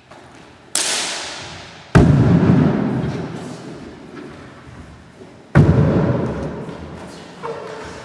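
Sudden impacts from a martial artist's stamping footwork and strikes on a wooden hall floor: a sharp slap-like hit about a second in, heavy thuds at about two and five and a half seconds, and a lighter one near the end, each ringing out in the hall's echo.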